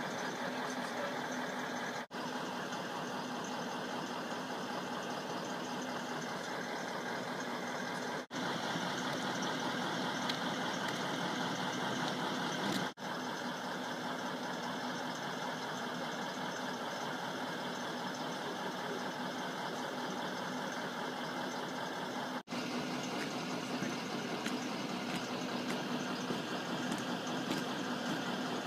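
A vehicle engine idling steadily with a constant hum, the sound dropping out for an instant four times.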